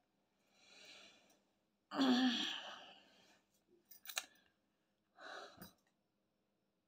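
Tarot cards being drawn and laid on a cloth-covered table: soft rustles and a couple of light taps about four seconds in, with a louder breathy sound about two seconds in.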